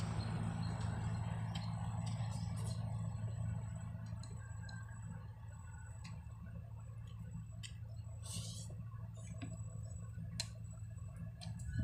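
A person eating noodles from a stainless steel bowl: chewing and slurping, with scattered light clicks of chopsticks and a metal spoon against the bowl, over a low steady hum.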